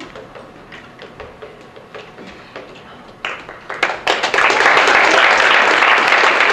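Audience clapping: a few scattered claps about three seconds in, swelling a moment later into loud, dense applause, after a quieter stretch of light taps and low murmur.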